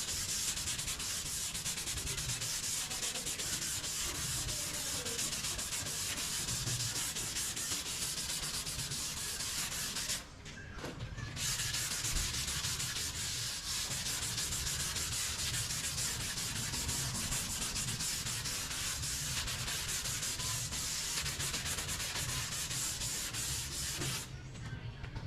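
Continuous sanding of Bondo body filler on a car body panel, a steady scratchy rasp with a brief break about ten seconds in; it stops about a second before the end.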